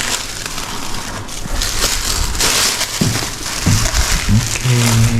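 Parcel packaging rustling and crinkling as it is handled and worked open by hand, a dense run of crackles heaviest in the middle.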